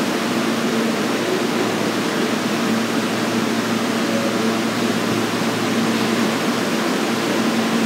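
R160A subway car standing in the station, its air-conditioning and onboard equipment running as a steady hiss with a low hum.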